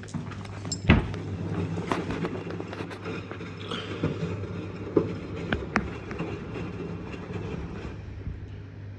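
LG F1222TD washing machine running: a steady low hum with irregular clicks and knocks, the loudest a sharp thump about a second in.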